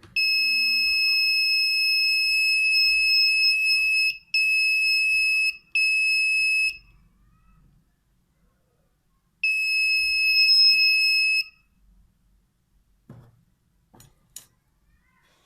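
A laser tripwire alarm's 12 V buzzer sounds a steady, high, piercing tone. It runs for about four seconds, then two short bursts, and after a pause of nearly three seconds sounds again for about two seconds. A few sharp clicks follow near the end.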